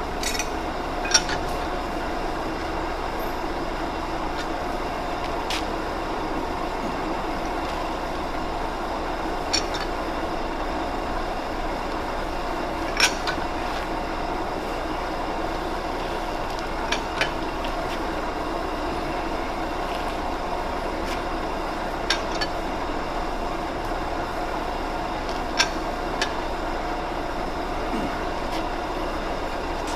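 Lathe running steadily with a pitched hum while a steel shaft turns in a steady rest during a run-out check. Sharp clicks come now and then, about seven in all.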